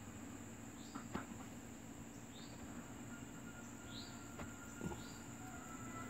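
Faint steady high-pitched insect drone, with short rising chirps about every second and a half and a few soft clicks.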